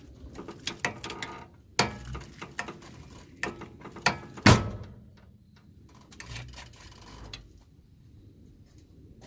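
Irregular clunks and clicks from a Suzuki Jimny's front end as the steering is turned, the loudest thump about four and a half seconds in. It is an abnormal noise whose cause the owner cannot find.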